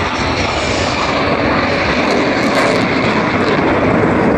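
Loud, steady jet roar of a Blue Angels F/A-18 Hornet flying past overhead, growing slightly louder toward the end.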